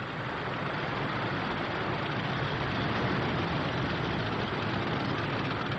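Steady, even rumbling noise with no breaks, shots or clear pitch: the sound-effect track of a battle scene, with fires and heavy vehicles.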